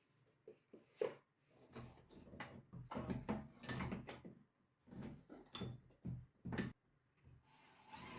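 Handling noise: irregular knocks, taps and scrapes as a spirit level and a cordless drill are set against a wooden batten on the wall, with a sharp click about a second in.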